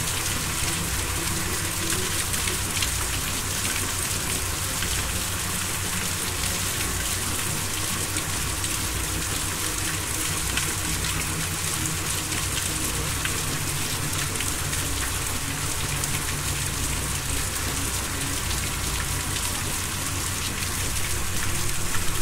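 Steady rain: an even hiss of falling rain dotted with many small drop ticks, at a constant level.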